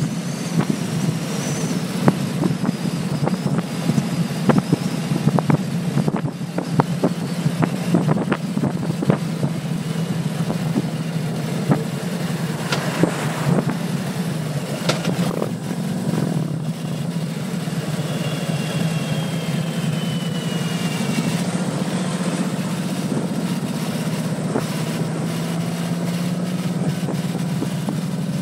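Harley-Davidson touring motorcycle's V-twin engine running steadily at cruising speed, heard from the rider's seat, with scattered clicks on the microphone.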